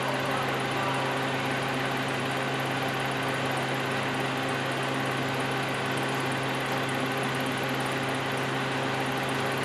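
Mobile crane engine running at a steady speed during a heavy lift: a constant low drone with several steady tones above it.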